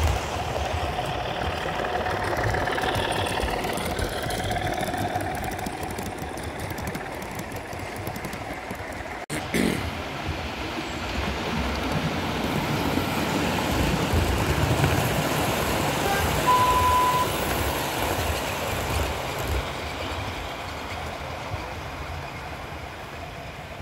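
Garden-scale model diesel trains running on outdoor track: a steady rumble and rattle of the locomotives and coaches rolling along the rails. A short steady high beep sounds about two-thirds through.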